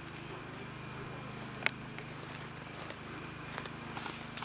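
Footsteps on a woodland path covered in dry leaves and twigs. About a second and a half in there is one sharp snap, the loudest sound. A run of crunching, rustling steps comes near the end.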